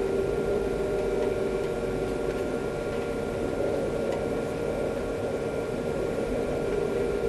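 Inside an Alstom Citadis 302 tram: a steady rumble of running noise with a few constant electrical tones from its equipment, holding an even level throughout.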